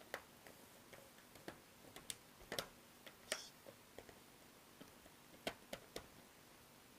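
Faint, irregular plastic clicks and taps: a laptop's plastic screen bezel and cover being pressed and snapped onto the lid, roughly a dozen clicks spread unevenly across several seconds.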